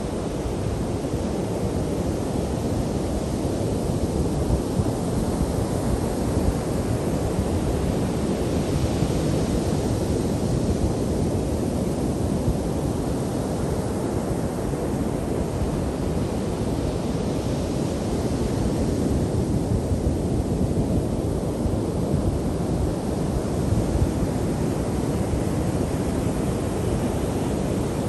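Ocean surf breaking on a sandy beach: a steady, continuous rush that swells with the breaking waves, most clearly around 9 and 18 seconds in.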